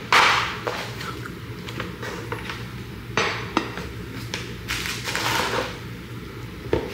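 A cardboard gift box with a foam insert being handled around a plate inside: a loud scrape at the start, two more brushing scrapes later, and scattered light taps and clicks.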